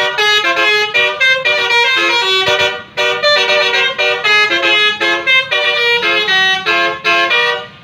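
Multi-trumpet 'telolet' horn of a RedWhite Star tour bus playing a quick melody of short, shifting notes. It cuts off abruptly near the end.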